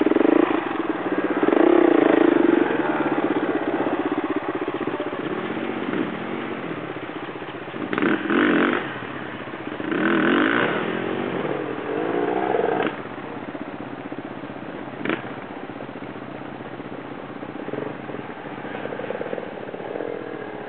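Off-road motorcycle engines revving in repeated bursts, the pitch rising and falling, as the bikes labour up a steep rocky climb. One sharp knock comes about fifteen seconds in.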